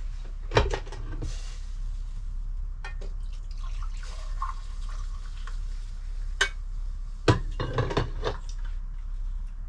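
Filter coffee poured from a coffee maker's carafe into a ceramic mug, with sharp clinks of the mug and carafe set down on the counter, the loudest a cluster about seven to eight seconds in.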